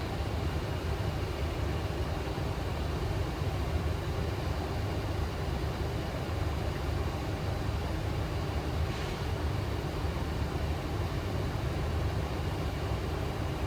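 Steady flight-deck noise of a Boeing 737 in flight: an even low rumble with faint steady high tones above it.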